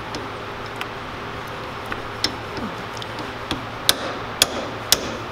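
Small pin punch struck with a hammer, driving the retaining pin out of a planet gear axle in an MG overdrive planet carrier: sharp metal-on-metal taps, a few faint ones at first, then louder ones about twice a second in the second half. The pin is stuck and hard to shift.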